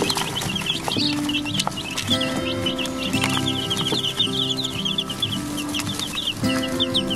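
A brood of young chicks peeping without pause, many short high cheeps overlapping several times a second, over background music with held notes.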